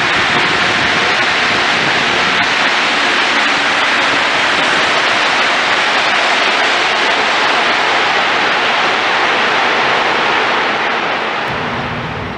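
Montreal Metro rubber-tyred train running past the platform, a loud steady rush that fades away about a second before the end as the last car clears.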